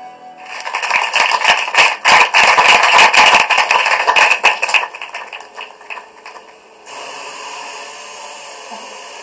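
Audience applauding, heard through laptop speakers, for about five seconds before it dies away. Then comes a steady, even whirr from small quadcopters hovering.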